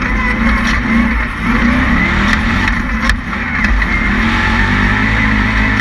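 Resleeved 427ci aluminum LS V8 of an Ultra4 off-road race car running hard under load, its revs rising and falling as the throttle is worked, with a sharp knock about three seconds in.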